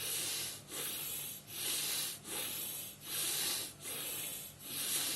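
A man breathing quickly and forcefully in and out through one nostril, the other pressed shut, in an even rhythm of about seven breath strokes in five seconds: single-nostril pranayama breathing.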